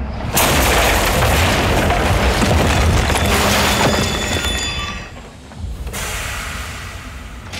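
A locomotive smashing through a house wall: a heavy rumble breaks into a loud crash about half a second in, with crashing debris for several seconds, then a second crash about six seconds in, over music.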